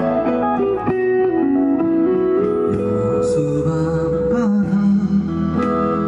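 Acoustic and electric guitar playing together live, with held electric-guitar notes over strummed acoustic chords.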